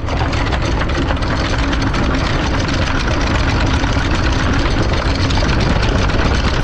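Sailboat's all-chain anchor rode paying out over the bow roller into the water, a steady, dense metallic rattle.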